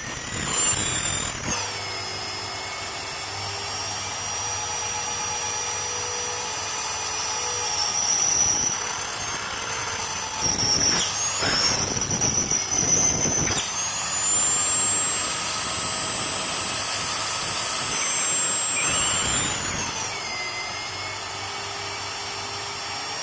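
Magnetic base drill's electric motor whining as it drills through mild steel plate. The whine falls in pitch as the cutter takes load about a second and a half in, rises again a little past halfway, and falls again near the end, with a few short rasping bursts in between.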